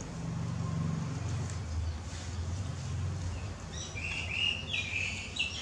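A low hum in the first half, then a run of short, high-pitched squeals from a baby macaque, several in quick succession through the second half.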